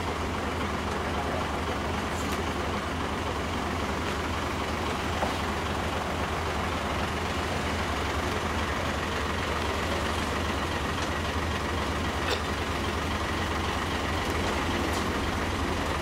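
Flatbed truck engine running steadily with a low hum, with two short knocks, one about five seconds in and one about twelve seconds in.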